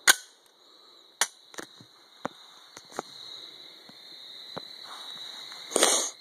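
Sharp metallic clicks and knocks from a Glock 17 pistol being handled, with the loudest just at the start, another about a second in, a few lighter ticks after, and a brief rustling clatter near the end. A steady chirring of night insects runs underneath.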